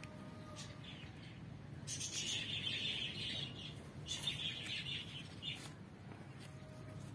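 Birds chirping, with two dense runs of chirps: one about two seconds in and another about four seconds in.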